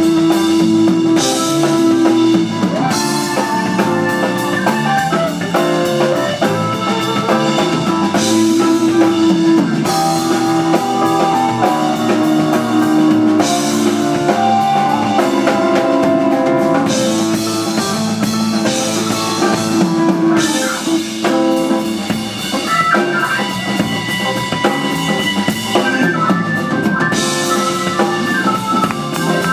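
Live rock band playing an instrumental number, with drum kit, electric guitar, electric bass, Hammond B-3 organ and piano.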